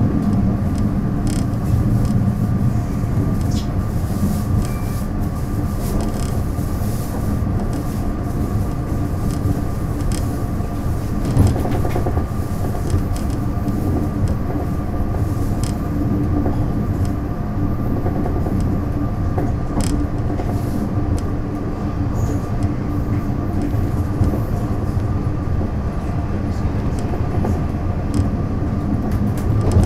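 Running sound of a Taiwan Railways DR3000 diesel multiple unit heard from on board: a steady low drone of engine and running gear with a continuous hum. Faint clicks are scattered through it, and one sharper knock comes about eleven seconds in.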